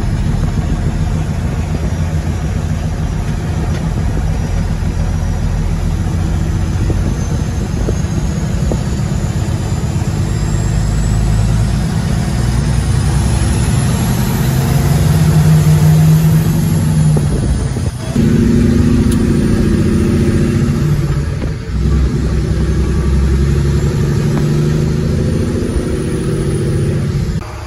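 Kenworth semi truck's diesel engine pulling along the road, heard from inside the cab, with a faint high whine that rises and then falls midway. The engine sound dips briefly twice in the second half as the truck is shifted through its gears.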